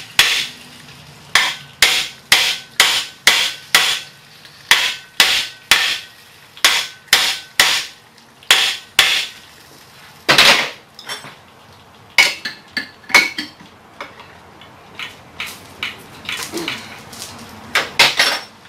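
Hand hammer striking a steel bearing and puller assembly again and again, in quick runs of about two blows a second, with a heavier blow about ten seconds in and lighter, scattered taps after it. The blows are meant to shock a torch-heated bearing loose from its taper sleeve while the puller holds it under tension.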